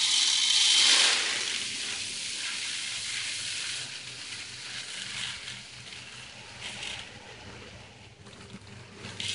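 Malted barley poured from a plastic bag into a plastic five-gallon bucket, a continuous rattling hiss of falling grain. It is loudest at the start and fades gradually.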